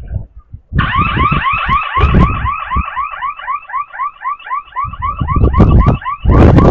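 Building burglar alarm siren starting about a second in, a fast warbling wail of about four rising sweeps a second, set off by opening a building while the security system was not disarmed. Loud low rumbling comes and goes underneath.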